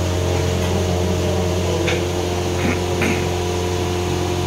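Steady machine hum in a commercial kitchen, low and even, with several fixed tones in it, as from a motor-driven fan or blower. A few short clicks come about two and three seconds in.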